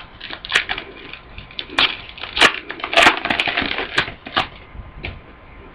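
Football trading cards being handled and shuffled by hand: irregular rustling with a string of sharp card clicks and snaps.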